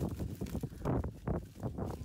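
Strong wind buffeting the microphone: a heavy low rumble that swells and drops, with irregular rustles and knocks on top.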